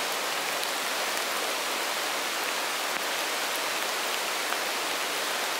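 Steady rain falling in woodland: an even hiss with a few faint ticks.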